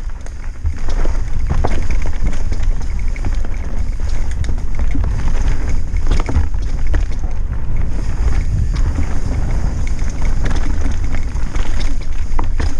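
Wind buffeting a helmet-mounted action camera's microphone on a mountain bike descent, as a steady low rumble. Mountain bike tyres roll over dirt and rocks, and the bike rattles and knocks over bumps.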